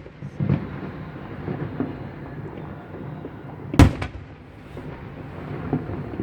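Aerial fireworks shells bursting: one loud boom about four seconds in, with fainter thumps and a low rumble between.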